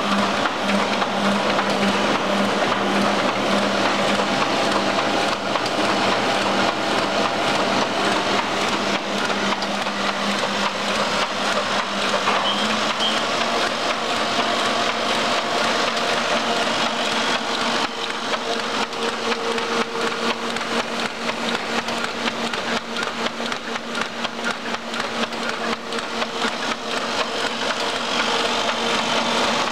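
Ryobi 3302H two-colour sheetfed offset press running: a steady mechanical din of motors and rollers with a low hum, whose pitch shifts slightly about halfway through.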